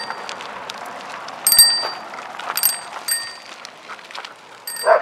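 Small handlebar bell on a child's tricycle, rung by hand. It gives about four bright dings at uneven intervals, each ringing out briefly.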